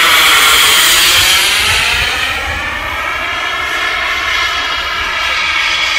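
Model jet's K45G4 turbine engine passing close overhead in flight: a loud jet whine and rush whose tone sweeps down and back up as it goes over. It eases off a little midway, then builds again near the end.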